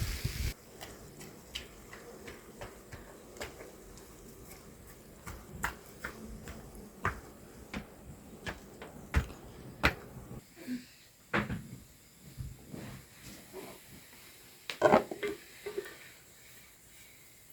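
Scattered light clicks and knocks of dishes and utensils being handled while food is served, with a denser clatter about fifteen seconds in.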